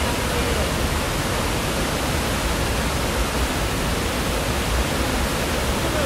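Rushing water of a mountain gorge, a steady, even hiss with no breaks.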